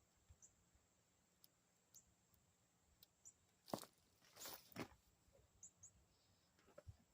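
Near silence with faint, short, high bird chirps now and then. A little past the middle come a few sharp knocks and a brief rustle.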